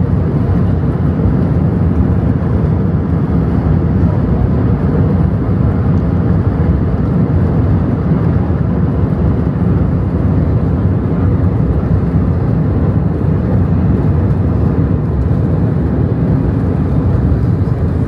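Steady low rumble inside the cabin of an Airbus A380 rolling on the ground just after landing, with its wing spoilers still raised.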